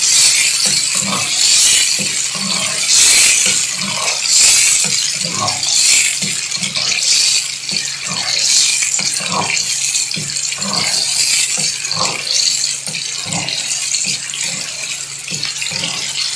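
Wet minced meat sizzling and sloshing in its own juices in a pan, stirred with a wooden spoon in repeated strokes about once a second.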